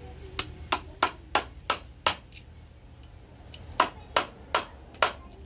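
Hammer tapping a 13 mm socket to drive a small water pump seal into its bore in a Yamaha YZ85 pump housing. Six sharp taps about three a second, a pause, then four more as the seal goes home.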